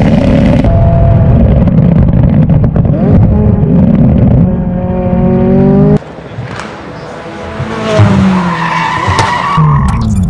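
McLaren 600LT's twin-turbo V8 running loud through a valvetronic catback exhaust, settling into a steady drone. About six seconds in the sound cuts to a quieter passage, and a high, wavering squeal rises near the end.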